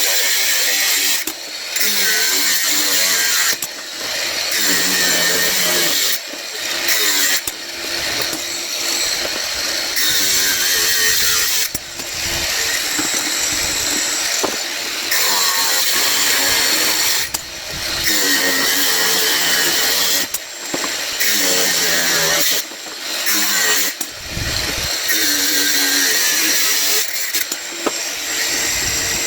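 Power tool cutting brass scrap, running in stretches of a couple of seconds with short breaks between cuts.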